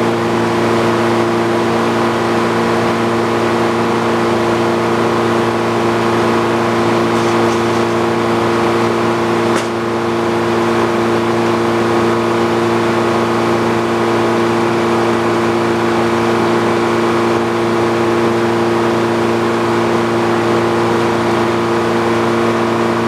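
Old Frick sawmill's engine running steadily at speed, with a single brief click about ten seconds in.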